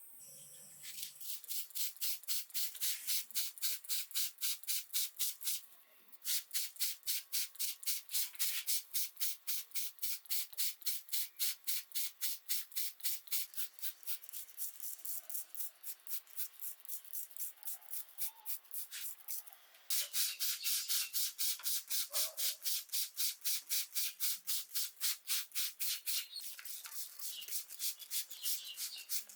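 Hand sanding on a diecast model car part: quick back-and-forth rasping strokes, about four a second, in three runs with brief pauses between them.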